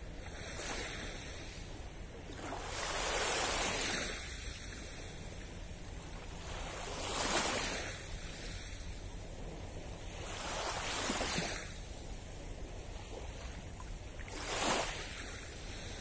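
Small waves on a calm Black Sea lapping onto the beach: a soft wash about every three to four seconds, four in all.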